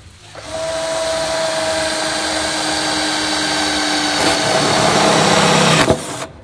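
Cordless drill boring a hole into MDF board, its motor running steadily with a whine. It starts about half a second in and stops abruptly near the end.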